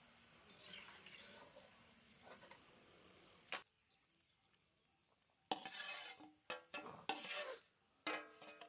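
Potato strips sizzling in hot oil in an iron karahi, with insects chirring steadily behind. About halfway through the sound cuts lower, then a metal spoon clinks and scrapes several times against a steel bowl and the pan as raw fries are pushed into the oil.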